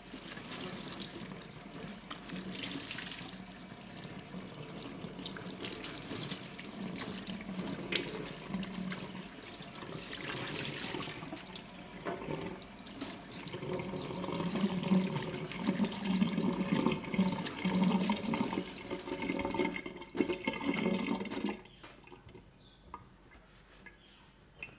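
Kitchen tap running into a stainless steel sink while a soapy dishcloth is rinsed under the stream, with louder, uneven splashing in the second half as the cloth is worked and wrung. The water sound stops about three seconds before the end.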